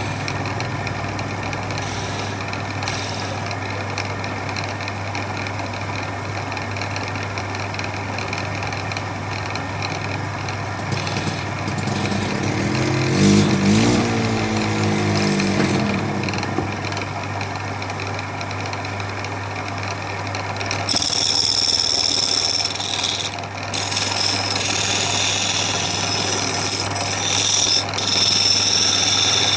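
A steady low machine hum; about two-thirds of the way in, a louder high-pitched whirring like a power tool starts and runs, dropping out briefly once.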